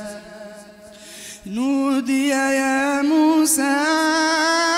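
A man's voice in melodic Quran recitation (tajweed), amplified through the mosque's microphones. After a short pause with a fading tail, he comes in about a second and a half in with a long, drawn-out note that rises slightly and wavers, held as an elongated vowel.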